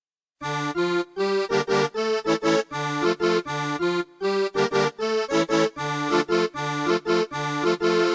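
A sampled cumbia keyboard patch in a Kontakt instrument, played from a computer keyboard without pitch bend or modulation. It plays short rhythmic chords over alternating low bass notes and stops abruptly near the end.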